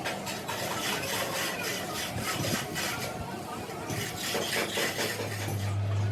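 Rapid repeated scraping strokes, with a steady low hum setting in near the end.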